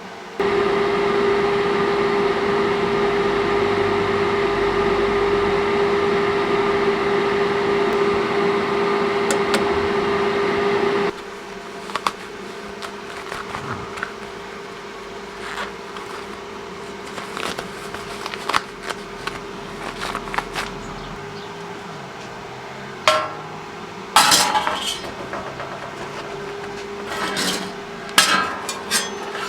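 A machine runs with a steady hum for about eleven seconds and cuts off suddenly. Then come scattered metallic clinks and knocks, as metal parts are handled and tapped, growing busier near the end.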